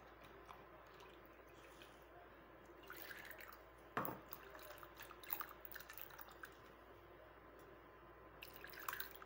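Faint dripping and small splashes of watery spice paste running from a steel mixer jar into a pot of rasam, with one sharp tap about four seconds in.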